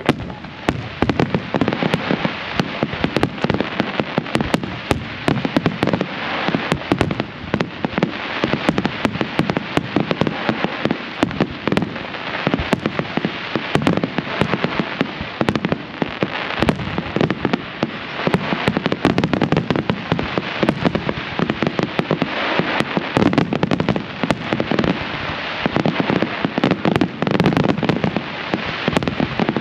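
Fireworks display going off in a dense, continuous barrage of bangs and crackles, many shots a second without a pause.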